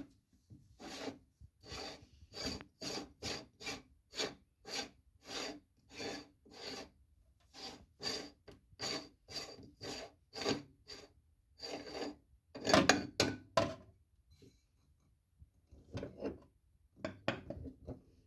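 Meat grinder grinding a chocolate-coated banana: short rasping strokes repeating about twice a second, with a louder, quicker cluster about two-thirds of the way through, then a few more strokes after a short pause.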